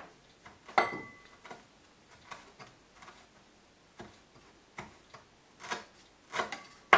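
A chef's knife strikes a plastic cutting board in irregular taps while finely slicing rolled kaffir lime leaves. The taps are sharp, and some are louder than others. One about a second in rings briefly.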